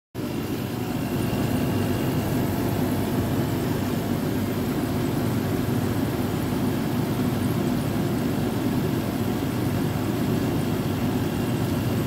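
Carrier window air conditioner running: compressor and condenser fan giving a steady, even hum and rush, heard close to the rear coil of a unit that is short of refrigerant.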